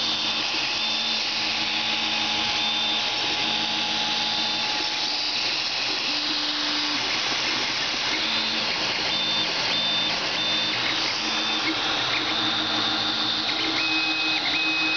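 Creality Ender-3 3D printer at work: its cooling fans give a steady whirring hiss, and its stepper motors whine in short on-off tones that change pitch as the print head moves.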